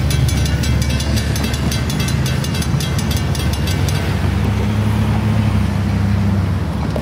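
Railroad grade-crossing bell ringing with quick, evenly spaced strikes over a steady low engine drone. The bell stops about four seconds in while the drone carries on.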